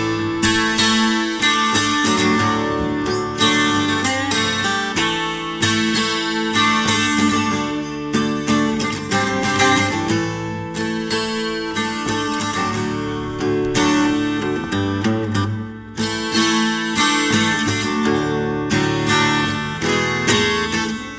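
Twelve-string acoustic guitar played solo, its picked and strummed chords ringing, with a brief lull about three-quarters of the way through.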